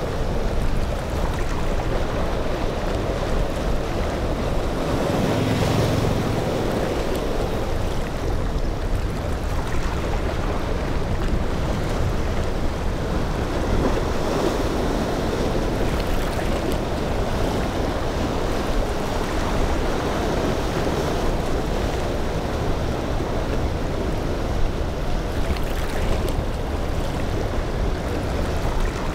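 Ocean waves breaking in choppy surf, with steady wind noise on the microphone.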